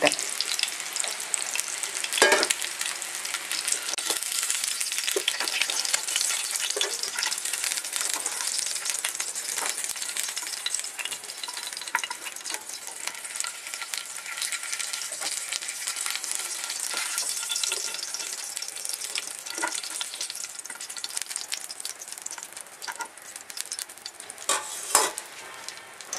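Chicken pieces sizzling in hot oil in a cast-iron frying pan, with a few sharp knocks of the utensil on the pan as the pieces are lifted out. The sizzle thins toward the end as the pan empties.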